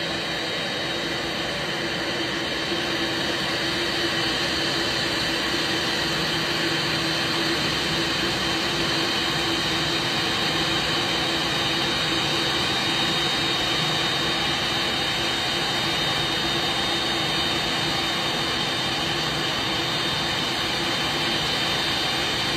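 Boeing 787-9 jet engines running at low taxi power as the airliner rolls slowly toward the stand: a steady whine with a high tone over a low hum and a rushing hiss.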